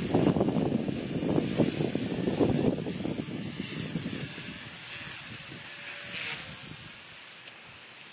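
High-pitched whine of a Blade mCP X micro helicopter's brushless HP-05 motor and rotors, with gusty low buffeting in the first three seconds. The whine wavers and slides lower in the second half as the battery runs flat.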